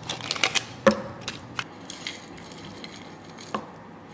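Foil lid being peeled off a yogurt cup: a quick run of crinkles and clicks over the first second and a half, then a single light tap about three and a half seconds in.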